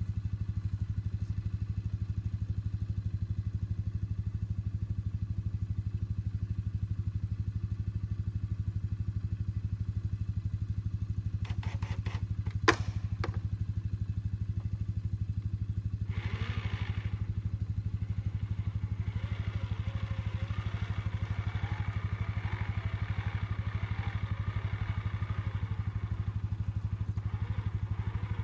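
A small engine running steadily with no change in speed. There is a single sharp click about 13 seconds in, and a hiss joins over the second half.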